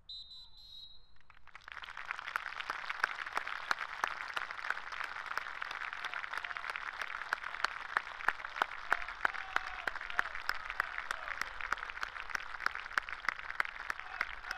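A short whistle blast, then about two seconds in a large outdoor crowd starts clapping and keeps up steady applause.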